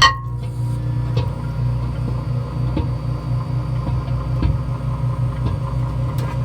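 Microwave oven running with a steady low hum, with a sharp click right at the start and a few faint ticks along the way.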